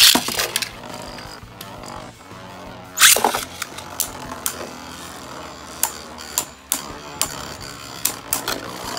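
Two Beyblade Burst tops, one with a 3D-printed layer, are ripped off their launchers into a plastic stadium with a sharp zip at the start. They spin with a steady whir, clash hard about three seconds in, and keep knocking together with scattered sharp clicks.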